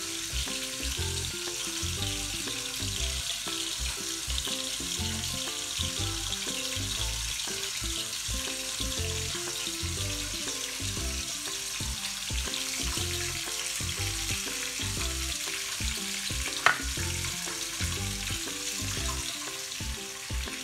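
Background music with a slow, stepping tune over a steady sizzling hiss. There is one sharp click about three-quarters of the way through.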